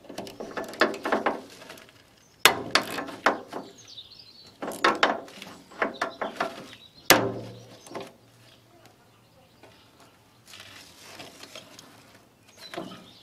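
A spanner working a rusted, partly rounded-off bolt on the clamp of a Countax grass collector's brush driveshaft: several spells of rapid metallic clicking and scraping, with one sharp knock about seven seconds in. The spanner fits poorly, and the bolt head is chewed.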